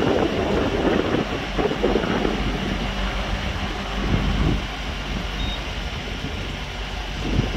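Heavy truck's diesel engine running steadily to drive its hydraulic loader crane while it lifts a cabin cruiser in slings, with uneven noisy surges in the first couple of seconds.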